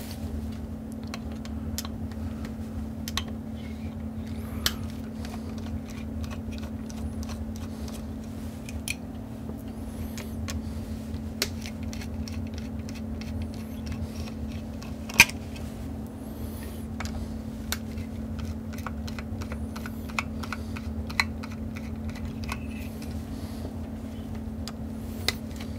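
Light, scattered clicks and taps from handling small electronic parts and tools, one sharper click about fifteen seconds in, over a steady low hum.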